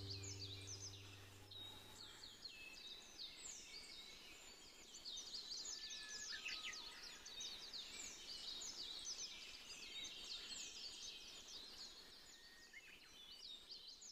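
Many small birds chirping together, a busy chorus of short, quick calls that sweep downward in pitch, faint. Background music fades out during the first two seconds.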